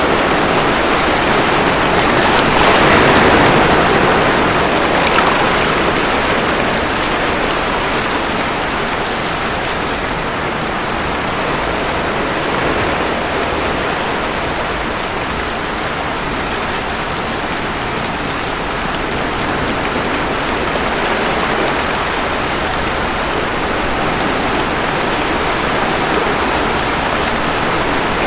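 Steady rain falling, with ocean waves washing in under it as an even hiss. It swells louder about three seconds in as a wave surges up, then eases back.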